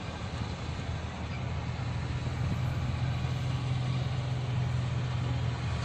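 Lotey 787 combine harvester running while harvesting wheat: a steady engine drone whose low hum grows stronger about two seconds in.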